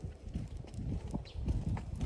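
Footsteps on asphalt during a walk with a dog on a leash: a quick, uneven run of low thuds with a few faint sharp clicks.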